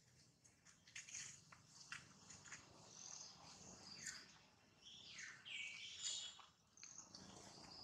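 Faint bird chirps and short whistled calls over a quiet woodland background. A similar short falling call comes twice, a little under a second in and again about five and a half seconds in.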